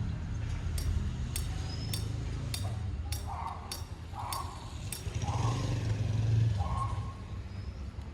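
Sharp metallic clinks of a hand tool striking hard ground or stone, repeating about every half second for about eight strikes and then stopping, over a steady low rumble.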